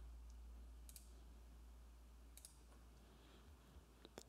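Near silence with a few faint clicks of computer controls, two of them close together near the end.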